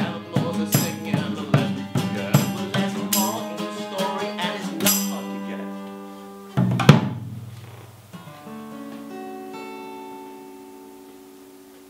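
Acoustic guitar and acoustic bass guitar playing the closing bars of a song, strummed in a steady rhythm with light percussion taps. About seven seconds in, a final hard-strummed chord, the loudest moment, rings out and fades, followed by a few quiet single picked notes ringing on.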